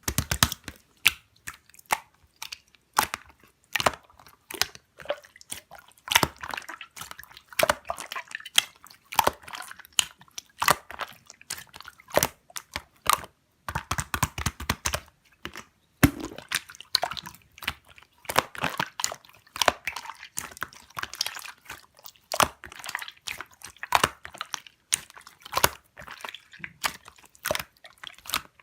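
Slime being squeezed and pressed by hand, giving dense clusters of sharp clicks and crackles with short pauses between handfuls.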